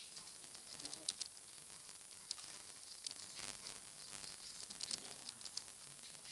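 Faint, irregular clicks of a computer keyboard being typed on, over a steady background hiss.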